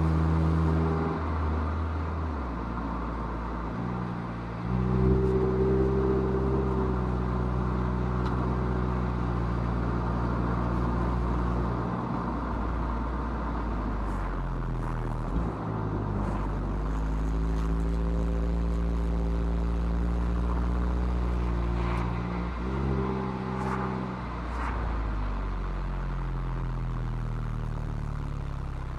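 Mazda MX-5's inline-four running through the stock exhaust while climbing a winding road. The engine note holds steady, then steps up and down several times as the throttle is opened and lifted, over steady tyre and road noise, with a few faint clicks in the second half.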